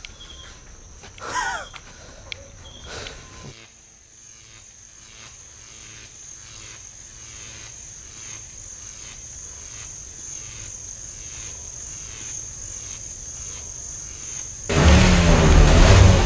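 Crickets trilling steadily at night, with a few short sliding calls in the first three seconds, then a pulse about twice a second that slowly grows louder. Near the end a loud car engine cuts in suddenly, revving.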